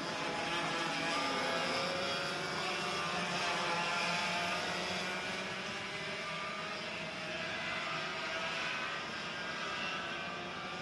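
Several racing karts' 100cc Vortex VLR two-stroke engines revving as they pass, overlapping, their pitch rising and falling as the drivers accelerate and lift.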